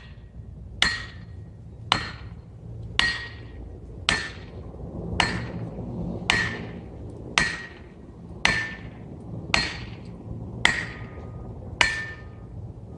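Eleven evenly spaced strikes, about one a second, each with a short ringing tone, over a low, steady rumble.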